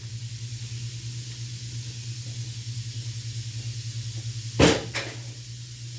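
Steady low hum with a hiss, broken about four and a half seconds in by a sharp knock and a smaller one just after.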